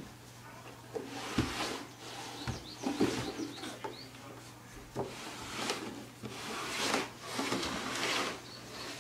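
A person sitting cross-legged sliding and bumping down wooden stairs, the body dropping onto the treads in a series of irregular thumps.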